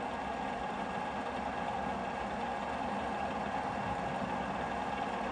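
Tiger FU-120 universal milling machine running with its table on power feed at the slowest rate, 11 mm per minute: a steady mechanical hum with a few faint steady tones.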